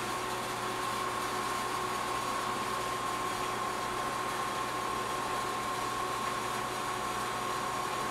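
Aquarium filter and pump running: a steady hiss of moving water with a thin, constant whine.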